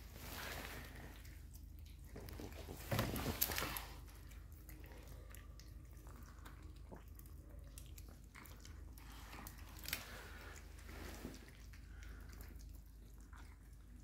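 Cats chewing and crunching food: faint, scattered crunches and clicks, with a louder burst about three seconds in.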